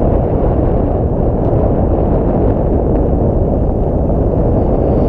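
Loud, steady wind buffeting the microphone: a dense low rumble without any clear pitch.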